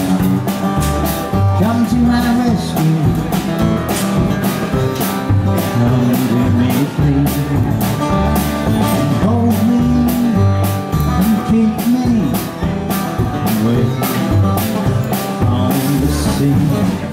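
A live country band playing an instrumental break between verses, with a steady drum beat, bass and melodic instrument lines.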